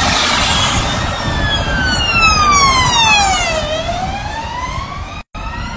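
Emergency vehicle siren wailing, its pitch sliding slowly down and then back up again, cutting out for a moment near the end.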